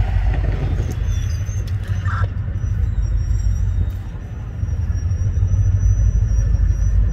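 Low, steady rumble of an EMD GP40-2 freight locomotive's diesel engine as the locomotives move slowly at low throttle.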